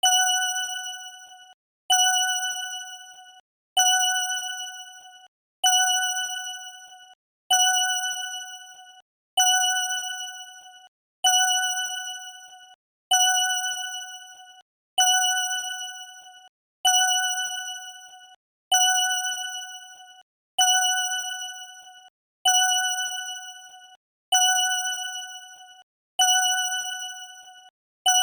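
Correct-answer ding sound effect played on a loop: a single bright chime at one steady pitch, struck about every second and three-quarters, each ringing out and fading before the next.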